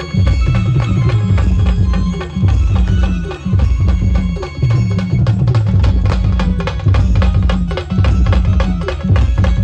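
Brass band playing an instrumental passage, with drums and bass drum keeping a steady, driving beat.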